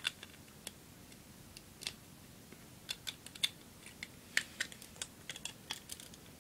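Lego plastic pieces clicking and clattering as they are handled and pressed onto a model: a string of irregular sharp clicks, densest in the second half.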